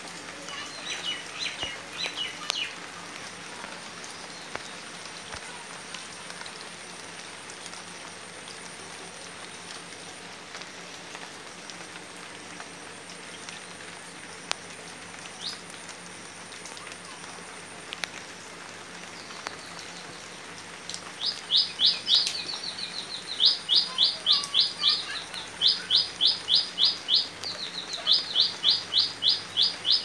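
Light rain falling steadily on standing floodwater and banana leaves, with a few sharp single drips. A bird calls in quick, evenly repeated high notes: a short burst about a second in, then a long series of rapid bursts over the last nine seconds, which is the loudest sound.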